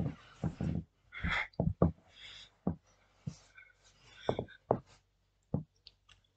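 Person doing knee push-ups on carpet: short, hard breaths mixed with soft knocks and rustles of hands, knees and clothing, in irregular bursts with quiet gaps between.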